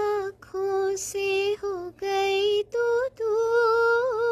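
Background music: a high voice singing a slow melody in long held notes with slight vibrato, with brief breaks between phrases.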